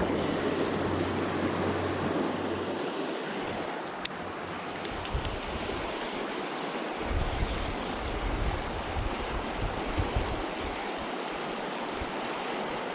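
Steady rushing of a shallow river flowing over rocky riffles, with low gusts of wind buffeting the microphone from time to time.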